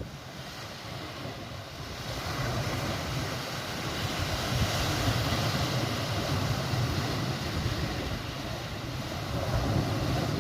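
Steady rushing of surf and wind, swelling about two seconds in, over a low steady rumble.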